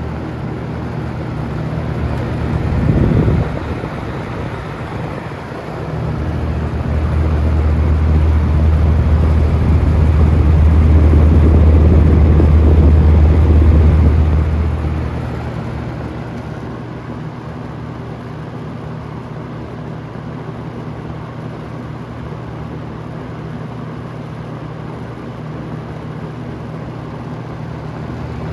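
A 1980s Super 20-inch box fan (Lasco-made, with D-shaped blades) running steadily, with an even rush of moving air over a low motor hum. There is a short bump about three seconds in, and a much louder low rumble swells from about six seconds in and fades by about fifteen seconds.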